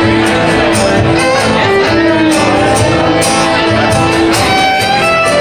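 Live band music led by strummed acoustic guitar, heard from among the audience in the room.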